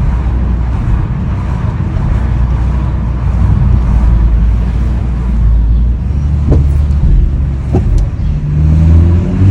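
2021 BMW M440i's turbocharged inline-six running with a steady low rumble. A few short sharp knocks come about two-thirds of the way through, the knocking noise the car is being checked for. The engine note rises near the end.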